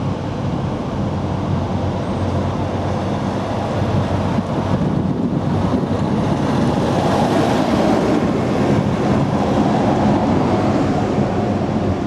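Steady low outdoor rumble with wind buffeting the microphone; a faint steady whine joins near the end.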